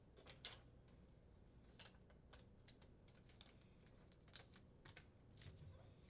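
Near silence, with faint, irregular small ticks and crinkles as foil moisture barrier tape is pressed and smoothed by hand onto the underside of a countertop.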